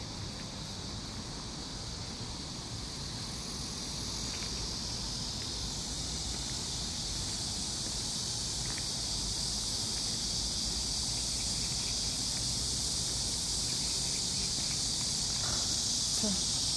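A steady, high-pitched chorus of insects in the grass, growing gradually louder, over a low rumble and a few faint footfalls of a person and dog walking.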